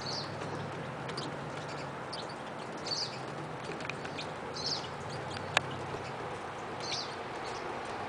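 Crossbills giving short high chip calls every second or two, with a single sharp click a little past halfway.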